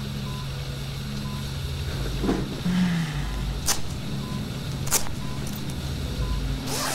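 Control-room electronics: a steady low hum with a short high electronic beep repeating about every half second to second, plus a couple of sharp clicks.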